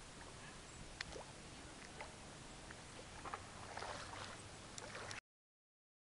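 Faint water lapping with scattered light clicks and a short run of small splashes about four seconds in; the sound then cuts to dead silence a little after five seconds.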